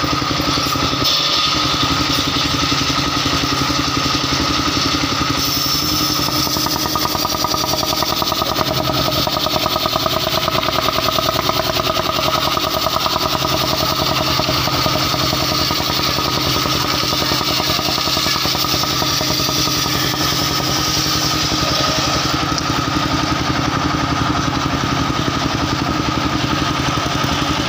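Engine driving a portable circular sawmill, running steadily.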